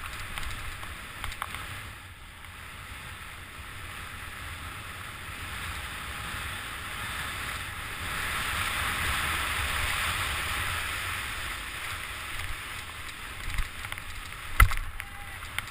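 Skis running through deep powder snow, with snow spraying against the camera housing: a steady hiss that swells in the middle, over a low wind rumble on the microphone. A sharp knock near the end is the loudest sound.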